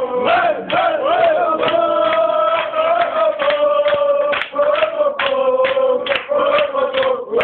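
A group of people chanting together on a long held note, with hand claps.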